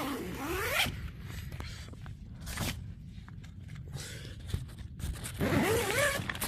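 A zipper being pulled in several strokes: a long one at the start, shorter ones in the middle, and another long one near the end. Its pitch glides up and down with the speed of each pull.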